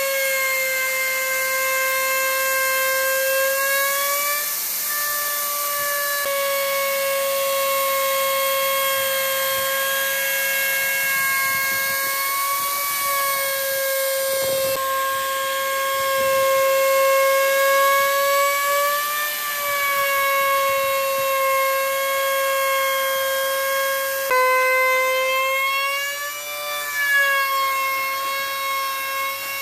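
Handheld electric router running at high speed while cutting into the edge of a wooden tabletop: a loud, steady high whine whose pitch wavers briefly a few times.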